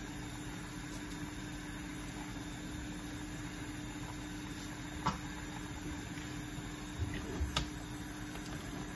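Steady hum and hiss of a pot of soup on a lit gas burner, with a couple of light clicks, one about five seconds in and one about seven and a half seconds in, and a few soft low knocks just before the second.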